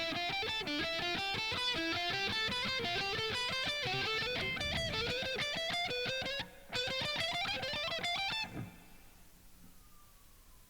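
Guitar playing a fast C major scale run across two strings, single notes climbing in pitch. There is a short break about six and a half seconds in, then a second climbing run that stops about eight and a half seconds in.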